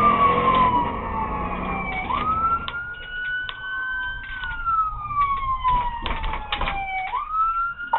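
A police siren on a slow wail: its pitch sweeps up quickly about two seconds in and again near the end, falling slowly in between. Engine and road rumble run underneath, with scattered short clicks.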